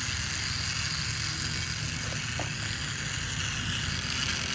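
Small battery-powered toy train's electric motor and gears whirring steadily as it runs along the track, with a couple of faint clicks about two seconds in.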